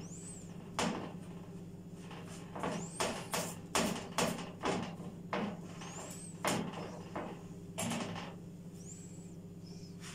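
Silicone spatula knocking and scraping against a non-stick frying pan as a thin sheet of bread dough is pressed and spread flat, a cluster of quick taps in the middle, with a few brief high squeaks and a steady low hum underneath.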